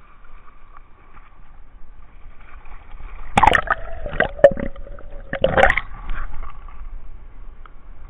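Water sloshing and gurgling against a waterproof camera housing as it dips under the surf. A loud splashy stretch starts about three seconds in and lasts a couple of seconds, with fainter wave wash before and after.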